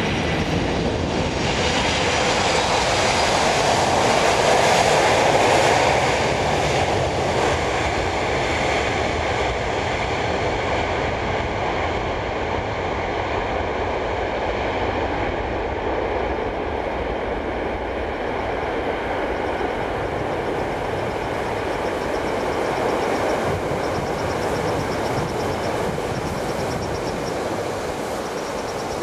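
Boeing 747-400 freighter's jet engines: a loud, steady rushing noise with high whining fan tones. It swells over the first few seconds, then holds steady.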